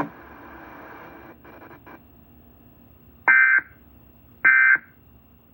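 EAS end-of-message data tones: two short, loud, buzzy bursts about a second apart, the digital 'NNNN' signal that closes an Emergency Alert System message. Before them, a second or so of faint radio static fades out.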